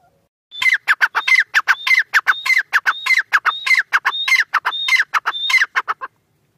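Grey francolin (teetar) calling: a loud run of about ten rapidly repeated shrill phrases that begins about half a second in and stops abruptly about a second before the end.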